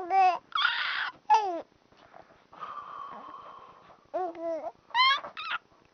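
An 11-week-old baby cooing and squealing: about five short, high-pitched vocal sounds that rise and fall in pitch.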